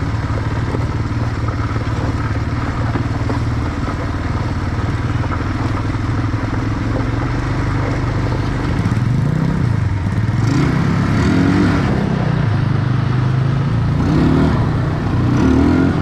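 Quad bike (ATV) engine running at low speed, its pitch rising and falling as it is revved up several times in the second half.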